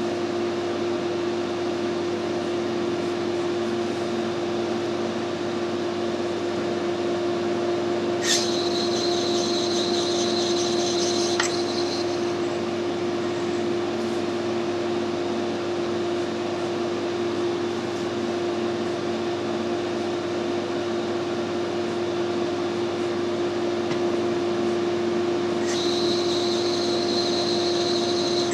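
Metric lathe running steadily with a constant hum while screw-cutting a 1 mm pitch thread on a brass fitting. Twice, about eight seconds in and again near the end, a high-pitched ringing joins for a few seconds as the flexible threading tool takes a cut.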